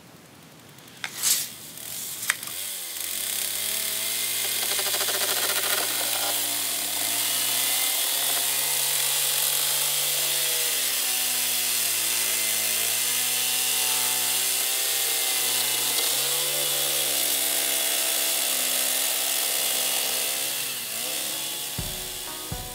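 Chainsaw cutting through a hard, 300-year-old seasoned oak beam. The saw comes up to speed about two and a half seconds in and runs steadily, its engine note dipping and recovering several times as the chain bites into the dense wood. It winds down near the end.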